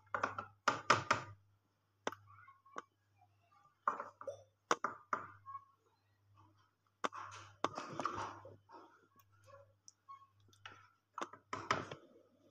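A spoon clicking, clinking and scraping against a glass baking dish as custard is spooned and spread over a layer of jelly cubes, in irregular clusters of short clicks with brief scraping stretches.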